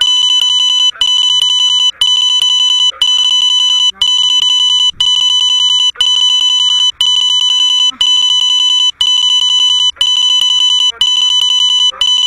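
Loud electronic alarm sounding a steady high-pitched tone in long beeps, about one a second, each separated by a very short gap.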